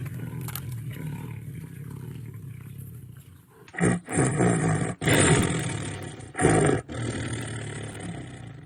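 Tiger rumbling low, then, from about four seconds in, a series of about five loud roars in quick succession, the last one fading away.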